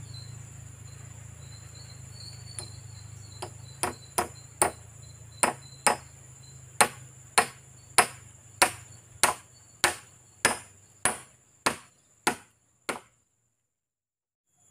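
A hand tool striking a wooden log, about 18 blows roughly every half second or so, a few light taps at first, then steady firm strikes. Insects chirr throughout, and all sound cuts off suddenly after the last blow.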